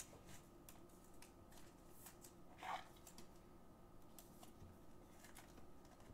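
Near silence with faint taps and light rustles of trading cards and clear plastic card holders being handled on a table, with one slightly louder brief rustle about two and a half seconds in.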